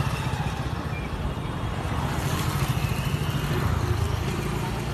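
Road traffic: a motor scooter's engine running as it rides past close by, over a steady low rumble that grows louder about four seconds in.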